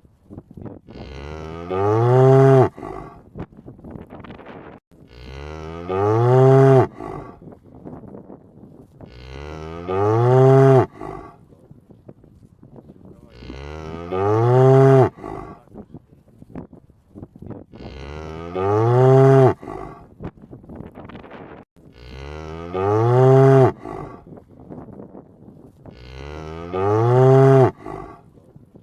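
A cow mooing: seven alike moos, one about every four seconds, each rising in pitch and lasting about a second and a half.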